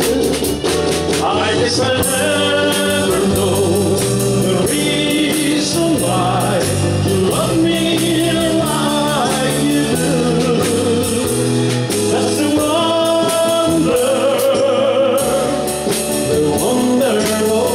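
A live band plays a song: a man sings lead into a microphone over drums with a steady cymbal beat, electric bass, electric guitar, keyboard and saxophone.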